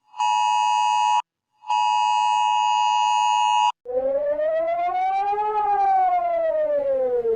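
Emergency Alert System alarm audio played in reverse: a steady two-tone attention signal sounds twice, first for about a second and then for about two seconds, followed by a siren whose pitch rises and then falls over about three and a half seconds.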